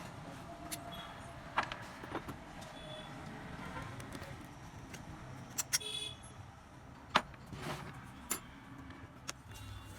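Scattered sharp clicks and knocks of hand work on a starter motor's parts, over a low steady background rumble.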